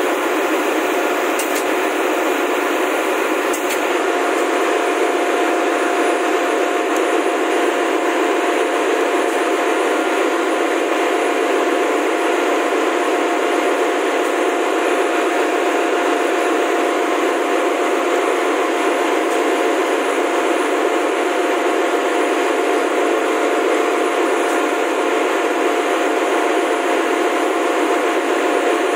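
Steady, loud machinery noise of a ship's engine room: an even din with a constant mid-pitched hum running through it, and a few faint clicks in the first few seconds.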